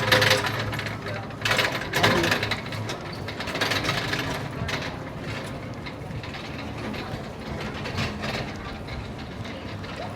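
Roller coaster train clattering and ratcheting along its track, with a few loud knocks in the first two seconds, then a steadier rattle.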